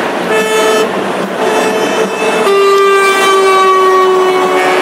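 Truck air horns sounding over engine noise: a short blast about a third of a second in, then a long blast from about two and a half seconds in, its pitch sagging slightly as it holds.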